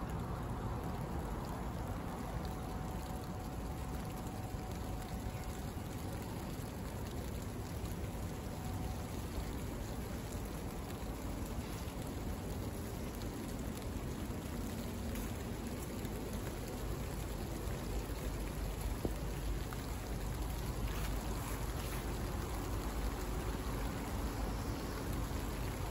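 Steady outdoor hiss with wind rumbling on the microphone, the rumble growing a little stronger near the end.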